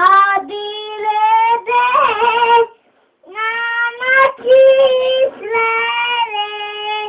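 A three-year-old child singing a song in long held notes. There are two phrases, with a short break about three seconds in.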